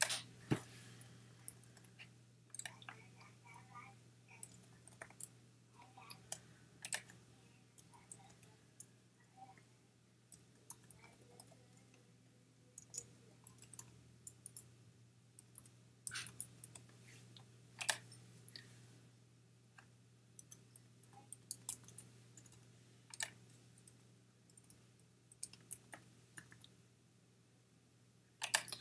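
Typing on a computer keyboard with mouse clicks: light, irregular clicks in short runs with pauses between them, over a faint steady low hum.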